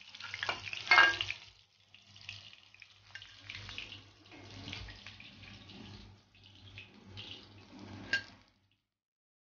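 Battered shrimp frying in hot oil in an iron kadai, sizzling and bubbling, with a slotted steel spoon scraping and clinking against the pan and a plate as the pieces are lifted out. It is loudest about a second in, has a sharp clink just after eight seconds, and cuts off suddenly soon after.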